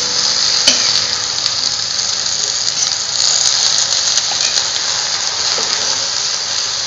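Pechay and chicken sizzling steadily in an aluminium wok while a metal ladle stirs them, with a few clicks of the ladle against the pan.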